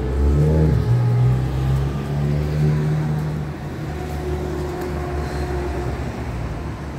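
A vehicle engine running, with a short rise in pitch about half a second in, then running fairly steadily and easing off slightly.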